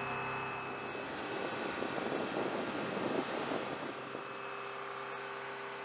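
Steady airfield machinery hum with several high, steady whining tones, like a jet engine or ground equipment running on a flight line, with a couple of faint clicks.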